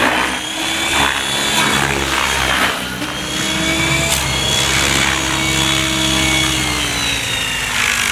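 RC helicopter's motor and rotors running in flight, a steady whine with several tones and a high gear whine, with the pitch sagging a little near the end as the head speed drops.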